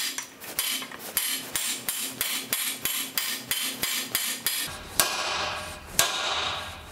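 A hand hammer striking the top of a 16 mm steel square-bar drift, driving the old wooden handle out of the eye of a ball-peen hammer head that rests on a swage block. The blows come fast and even, about four a second, then thin to a couple of separate blows near the end.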